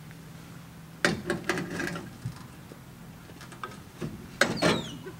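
Clattering wooden knocks and rattles from a wooden hand cart being handled, in two bouts: one about a second in and one near the end, the second with a brief high falling squeak. A low steady hum runs underneath.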